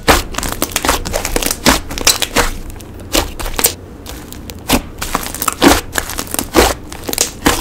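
Hands squishing, poking and stretching slime, making irregular sharp pops and clicks, a few each second.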